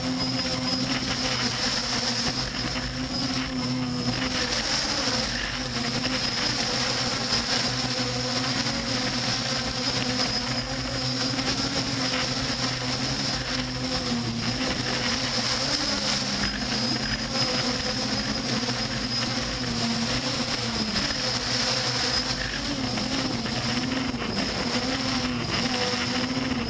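Steady drone of the aircraft's motors and propellers heard from on board, its pitch wavering slightly up and down.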